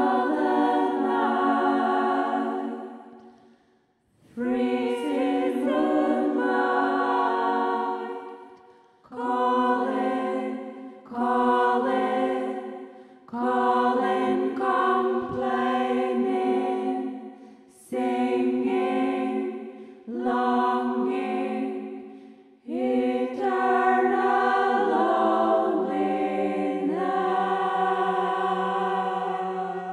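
A cappella choir singing a slow piece in about nine phrases separated by short pauses, the last phrase a long held chord.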